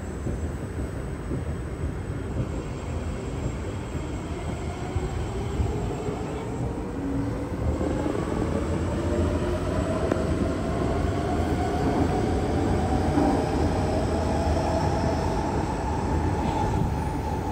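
Kawasaki C151B MRT train running through the platform without stopping: a low rumble of wheels on rail that builds as it nears and is loudest as the cars go by. A whine rises in pitch over it through the middle of the pass.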